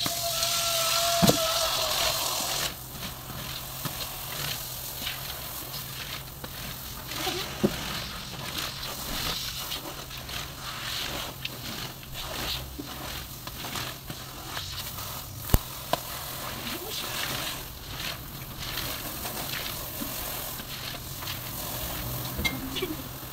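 A wet carpet is rolled up by hand on a tiled floor, with irregular crackling, scuffing and squelching and a few sharp clicks over a steady low hum. A loud hiss with a steady tone fills the first couple of seconds, then stops abruptly.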